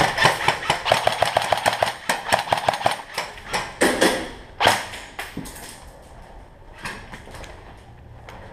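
Airsoft rifle firing rapid full-auto strings, about ten shots a second, for the first few seconds. A couple of sharp single knocks follow around four and five seconds in, then quieter scattered ticks.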